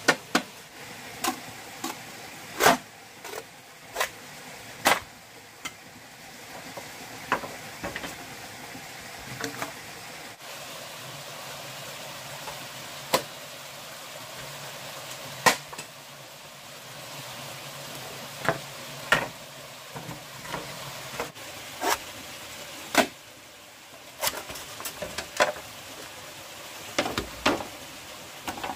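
Sharp knocks of a tool striking bamboo, coming irregularly every second or two, over a steady hiss.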